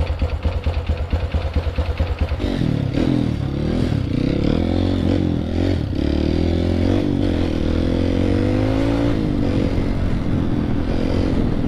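Off-road dirt bike engine idling with an even pulse, then opened up about two seconds in, its pitch rising and falling as the throttle is worked.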